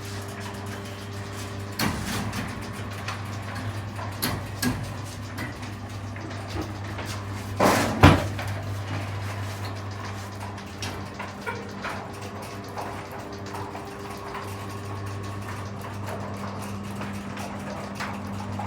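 Guardian roller garage door motor running with a steady hum as it winds the door up to open, the door curtain rattling and knocking, with a loud clunk about eight seconds in.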